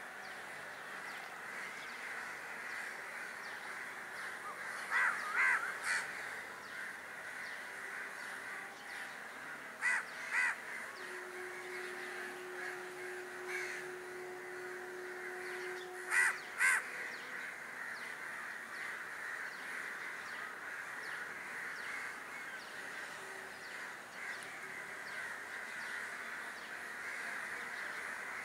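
Harsh bird caws in short groups: three about five seconds in, two near ten seconds, one faint call later, and two more around sixteen seconds. Behind them runs a steady background hum.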